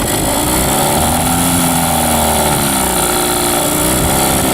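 A boat's outboard motor running unevenly: its pitch rises about a second in and sinks back over the next couple of seconds, then settles. It is a surge that doesn't sound right, in an engine that has not been run for a very long time.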